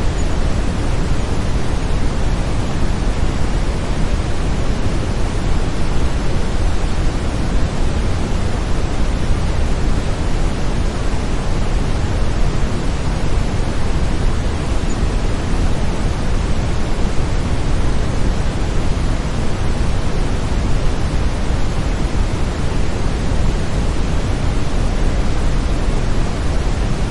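Steady brown noise: an even, deep hiss that does not change.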